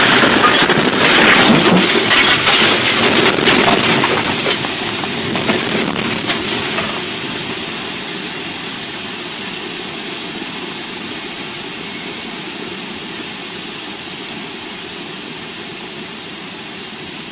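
A train on the rails: loud clattering with many sharp knocks and metallic bangs, easing after about seven seconds into a steadier noise that slowly fades.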